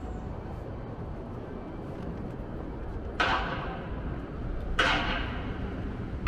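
Urban outdoor ambience: a steady low traffic rumble, with sharp knocks that each ring briefly, about every second and a half from about halfway through.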